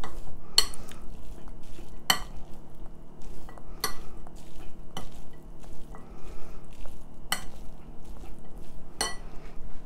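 A metal spoon stirring chickpeas and chopped vegetables in a glass bowl, with about six sharp clinks of spoon striking the glass spread through the stirring.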